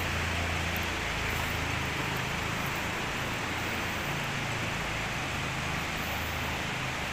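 Steady outdoor rushing noise with a low motor-like hum underneath that shifts in pitch about a second in and again about four seconds in.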